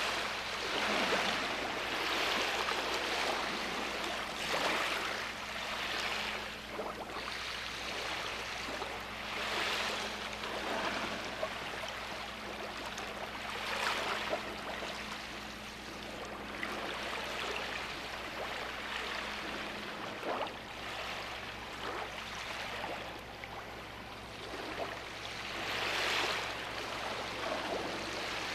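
Sea waves washing onto the shore, a wash of surf swelling and fading every few seconds. A faint steady hum runs underneath and stops about two-thirds of the way through.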